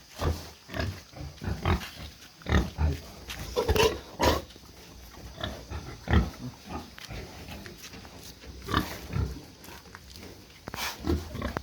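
Pigs grunting in short, irregular calls, several of them loud.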